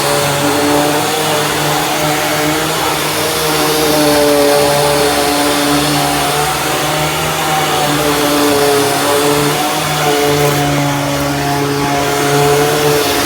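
Dirt Devil Ultra Vision Turbo upright vacuum cleaner running, its motor giving a steady whine that wavers slightly in pitch, with a small dip about ten seconds in.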